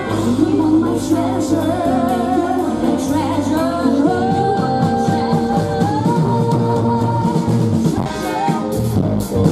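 Live pop-rock band playing, with female vocals over electric guitars, bass, drum kit and keyboard.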